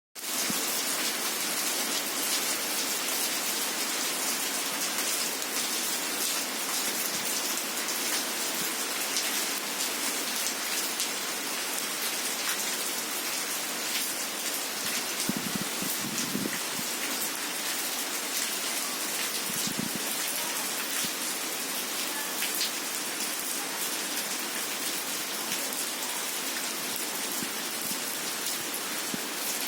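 Heavy rain falling steadily, a dense even hiss with many sharp drops spattering on surfaces. Two brief low rumbles come about halfway through.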